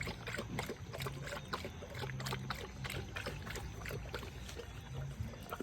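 Young chocolate Labrador lapping water from a bowl: a quick, uneven run of small wet laps and splashes.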